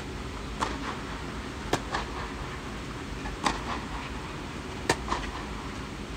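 Tennis rally on a clay court: four crisp racket-on-ball strikes, about one to one and a half seconds apart, each followed shortly by the softer thud of the ball bouncing on the clay. The strike about five seconds in is the loudest.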